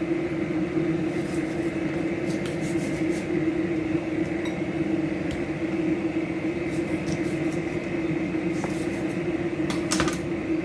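Raw chicken wings being cut in two at the joint: short sharp cutting clicks and taps in scattered clusters a few seconds apart, over a steady background hum.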